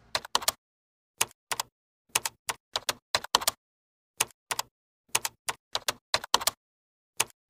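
Typing sound effect for a title being typed out on screen: about two dozen sharp single key clicks in uneven clusters, with dead silence between them.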